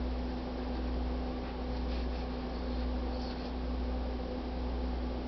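Steady low background hum with a faint steady tone, and a few faint scratchy sounds about one and a half to three and a half seconds in; no barking.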